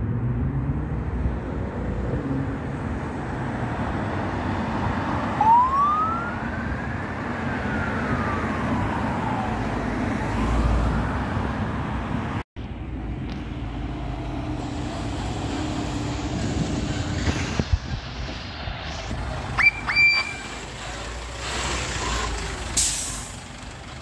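Fire truck siren wailing over steady road traffic: one long rise and slow fall, with the next rise beginning. Near the end come two short high tones.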